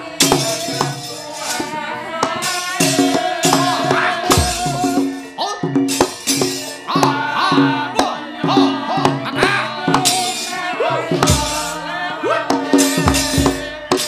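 Javanese gamelan accompaniment to a wayang kulit battle scene: rapid metallic clattering of the puppeteer's kecrek plates over pitched gamelan instruments, with a few deep drum thuds.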